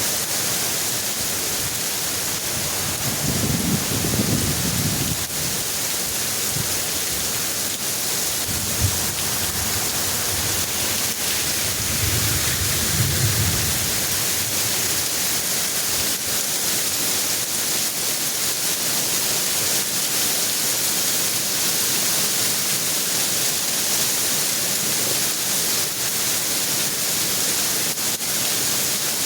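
Heavy rain pouring steadily, with low rumbles of thunder about three seconds in and again around twelve seconds in.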